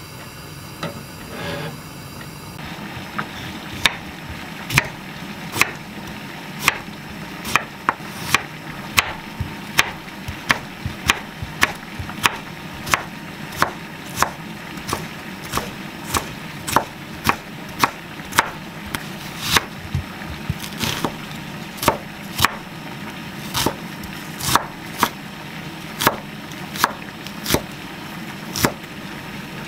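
Chef's knife dicing cucumber and onion on a wooden cutting board: sharp knocks of the blade striking the board, about one and a half a second, starting about three seconds in.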